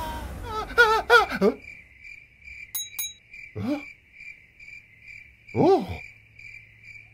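Cricket chirping steadily, about three chirps a second, over a faint low hum, as a night-time sound effect. Short gliding cartoon voice sounds from the animated character cut in a few times: once about a second in, again past halfway, and a longer one near the end.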